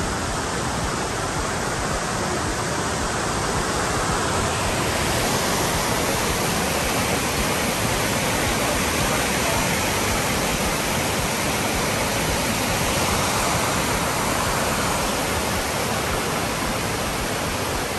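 White water of a mountain creek cascading over boulders below a waterfall: a steady rushing noise that grows a little louder and brighter about five seconds in.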